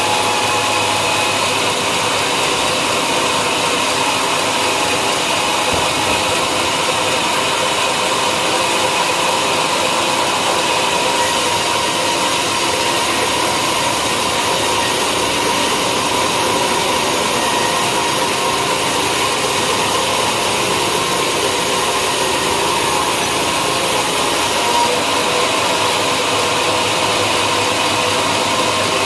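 Sawmill machinery running steadily and loudly, with a constant mechanical hum and hiss. The high hiss grows brighter for a stretch in the middle, then eases back.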